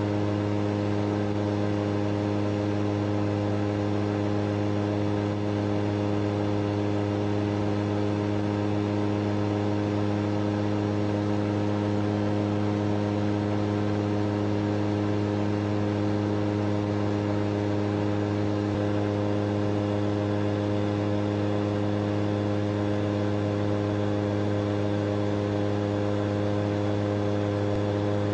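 Shadow microlight's engine running steadily at one unchanging pitch, an even hum with no rise or fall in speed.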